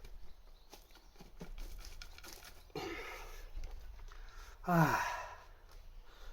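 A man's strained sigh, a sharp downward-falling groan about two-thirds of the way in, with a breathy exhale about three seconds in and a few light clicks of tools.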